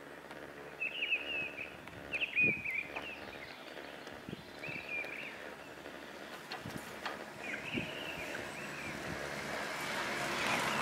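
A small bird chirping in short phrases, with a couple of dull knocks, the first the loudest sound here. A steady hiss swells near the end.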